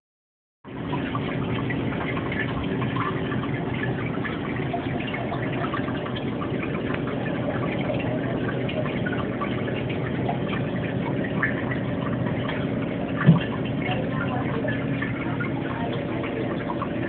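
Water circulating in a reef aquarium: steady trickling and splashing with a low hum from its pumps. A brief thump about 13 seconds in.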